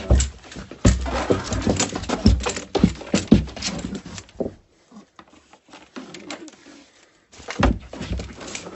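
Bumps, knocks and scuffling of a cornered bobcat struggling in a small closet as handlers try to catch it, dense for the first four seconds or so, then quiet for about two seconds before more thumps near the end.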